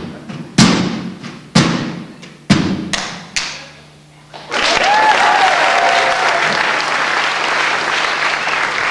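Flowerpots banged down hard on a table four times, about one a second. Then, about halfway through, an audience bursts into applause with a cheer.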